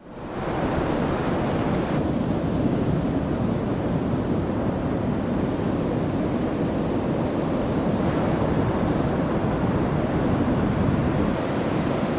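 Large ocean surf from a typhoon swell, a steady wash of breaking waves with wind noise on the microphone. It fades in over the first half second.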